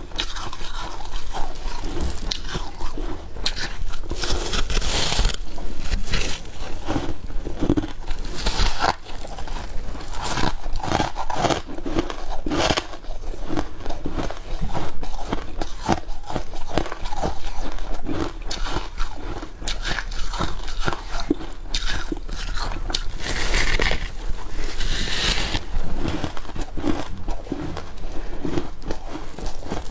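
Freezer frost being bitten and chewed: a continuous run of crisp crunches, one after another.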